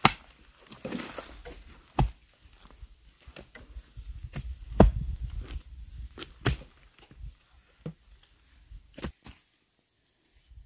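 Irregular knocks and thuds of a hand tool striking, one every second or two, the heaviest a little before the middle, with faint rustling between and quieter knocks near the end.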